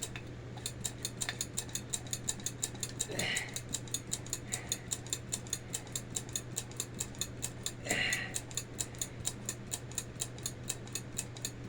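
Hand-operated brake-bleeding vacuum pump being squeezed over and over, clicking in a fast even rhythm of about four clicks a second as it draws a vacuum on a sealed jar. A steady low hum runs underneath, with two short hisses.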